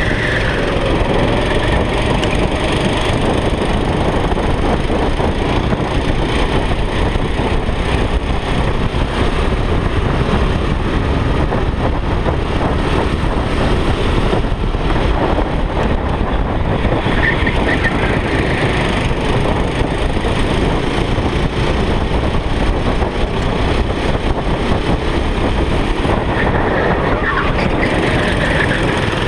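Go-kart engine running steadily under way, heard from on board the kart as a dense, rough, rattling noise.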